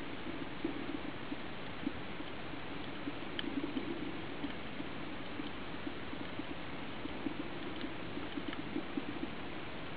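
Underwater reef ambience: a steady hiss with a dense, irregular crackle of faint ticks and a few sharper clicks.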